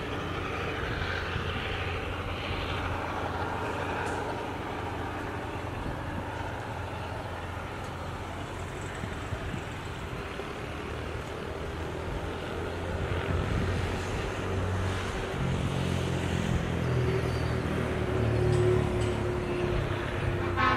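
Steady low rumble of distant engines, from road traffic on an overpass and a diesel train down the line. A deeper engine note builds about two-thirds of the way through and is loudest near the end.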